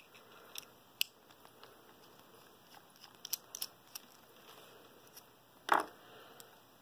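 Light metallic clicks and scrapes of a screwdriver working at a Phillips screw down inside an ABUS 83/45 padlock body; the screw will not come out. One louder knock near the end.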